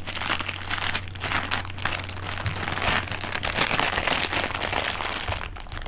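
Clear plastic zip bag crinkling and rustling as hands handle it and work a triangular metal bracket out of it.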